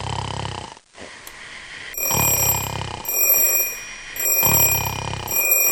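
A person snoring loudly: three rattling snores about two seconds apart. From about two seconds in, a high, steady electronic ringing tone sounds over the snoring.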